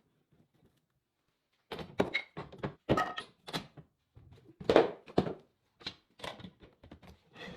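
A run of irregular knocks and thuds, a dozen or so over about six seconds, starting a couple of seconds in; some have a short ring to them.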